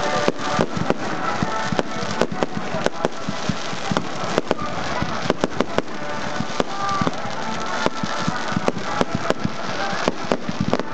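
Fireworks display: a rapid, irregular barrage of bangs, several a second, over a continuous hiss of burning fireworks.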